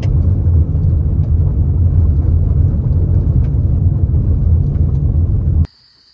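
Vehicle road noise from inside the cab while driving a gravel road: a loud, steady low rumble of tyres on gravel and the running vehicle, with a few faint ticks. It cuts off suddenly near the end.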